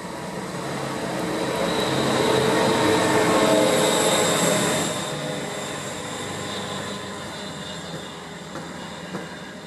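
Yellow on-track maintenance machine running through a station, its engine and wheels on the rails growing to their loudest about three to four seconds in, with a thin high-pitched whine at the peak, then fading as it moves away.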